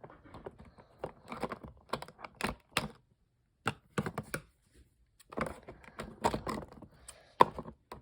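Plastic-and-cardboard toy packaging being handled and pried open by hand: irregular clicks, snaps and rustles, with a short pause about three seconds in.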